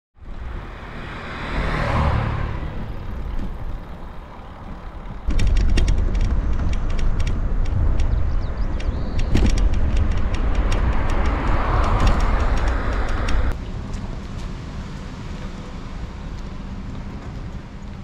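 Road vehicle noise: a vehicle passing by about two seconds in, then louder running noise with many sharp rattling clicks that cuts off suddenly about two thirds of the way through, followed by a steadier, quieter hum.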